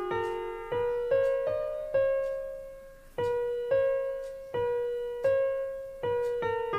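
Background music: a slow, simple piano melody of single notes, each struck and left to fade, roughly one or two notes a second.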